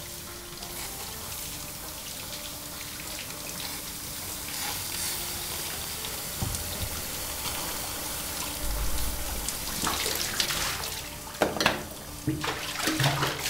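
Handheld shower head spraying water, a steady hiss, with a few sharp knocks near the end.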